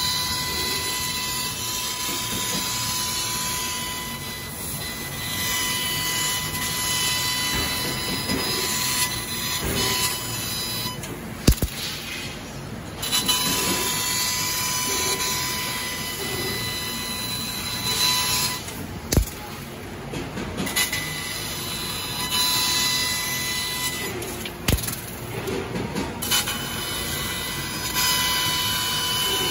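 CNC laser cutter cutting 6 mm steel plate: a steady hiss with a high whine as the head cuts. It drops away briefly three times, each time with a sharp click.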